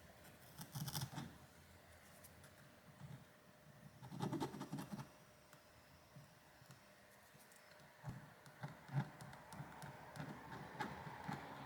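Faint, scattered scratching and small clicks of a small flat screwdriver scraping leftover adhesive from a phone's rear camera recess after the camera glass has been removed.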